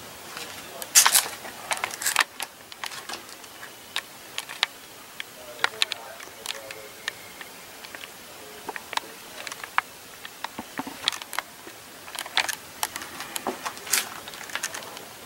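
Handling noise of a handheld camera: scattered sharp clicks and knocks, the loudest a pair about one and two seconds in, with faint voices in the background.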